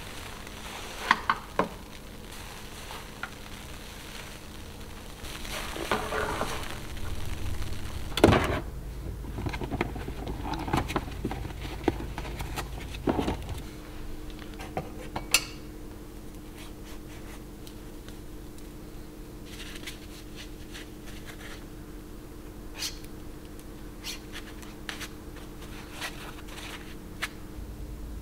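Things knocking and clattering against a stainless steel kitchen sink, with swishing and scrubbing in soapy water. The clatter comes mostly in the first half; later there are only a few light taps and clicks as small items are handled.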